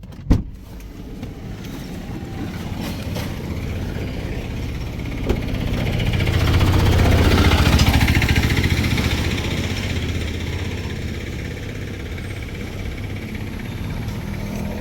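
A motor vehicle passing by, growing louder to a peak about halfway and then fading, with a sharp click right at the start.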